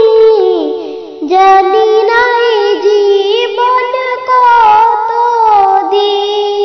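A woman singing a slow Bengali song unaccompanied, in long held notes that slide from one pitch to the next, with a brief breath about a second in.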